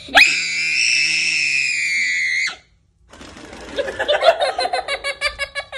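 A young child's long, high-pitched scream lasting about two seconds, then a second or so later a run of rapid, pulsing giggles.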